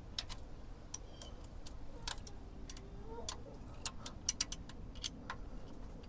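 Ratcheting wrench clicking in short, irregular runs while a thermostat-housing bolt is run back in and snugged up with washers to stop a coolant leak.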